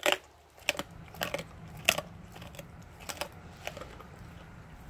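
Blue Bay Shepherd chewing a raw meaty bone, a string of sharp, uneven crunches as its teeth break through meat and bone, the loudest at the very start and about two seconds in.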